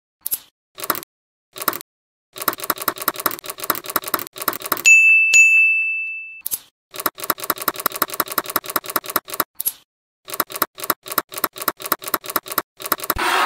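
Magnet balls clicking into place one after another, a rapid run of sharp, ringing clicks several a second, as a strand is pressed onto a column of magnet balls. About five seconds in, a loud high ding rings out and fades over about a second and a half, and the clicking then goes on.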